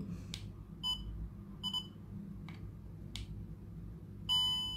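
DJI Osmo Mobile 3 gimbal beeping as it is switched on: two short electronic beeps about a second apart, then a longer, louder beep near the end, with a few faint clicks from its buttons in between.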